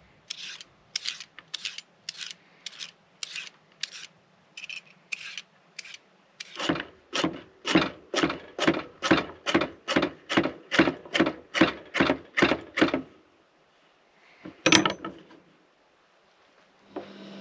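Regular scraping strokes, about three a second, growing louder about halfway through, then stopping, with one last stroke a little later.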